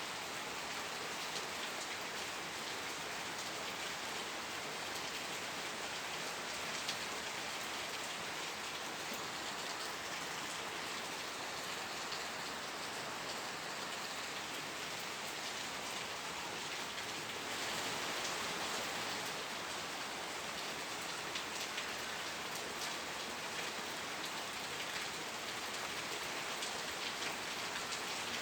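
Steady rain falling, with individual drops pattering on a surface; it swells slightly for a few seconds past the middle.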